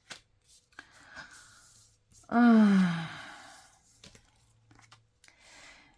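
A woman's voiced sigh, about a second long, falling steadily in pitch, a couple of seconds in. Faint rustles and light clicks come before it.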